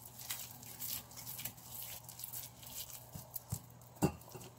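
Wet bulgur kubba dough being squeezed and patted into a ball by hand: faint soft squishing and tapping, with a sharper knock about four seconds in as the dough is set down and pressed on the surface.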